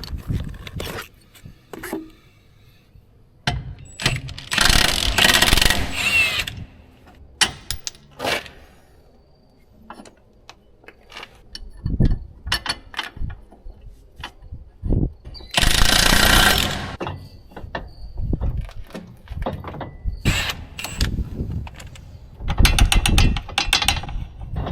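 Impact wrench run in several short bursts of rapid hammering, the longest about two seconds each, working the blade nuts on a hay mower. Scattered metal clicks and clinks come between the bursts.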